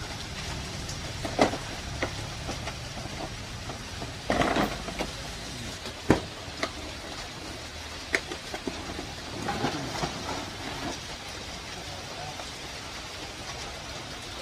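Scattered metal knocks and clicks from handling tools and a stainless steel tank at a workbench, with a short clatter about four and a half seconds in and the loudest knock about six seconds in, over a steady rushing hiss.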